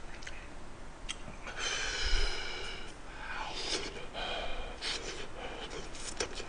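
A man eating a mouthful of potato close to the microphone, with breathy huffs and wet mouth noises and a few light clicks. About two seconds in there is a short high-pitched squeaky sound.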